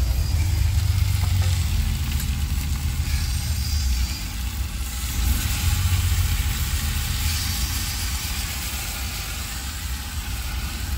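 Cluster beans and potatoes sizzling as they fry in oil in a pan, with a spice mix just added. A steady low rumble runs underneath.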